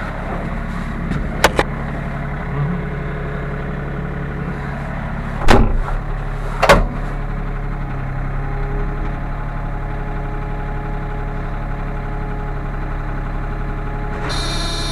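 Sany SY35U mini excavator's diesel engine running steadily, heard from inside the cab. A couple of sharp clicks come about a second and a half in, and two loud clunks follow around five and a half and almost seven seconds. Near the end a higher, whining sound comes in over the engine.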